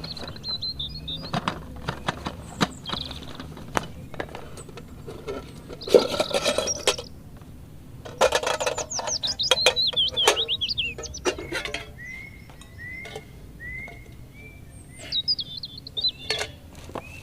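Forest birds calling, with quick chirping trills and a run of five short, evenly spaced whistled notes, among scattered sharp clicks and clinks. A louder noisy rustle comes about six seconds in.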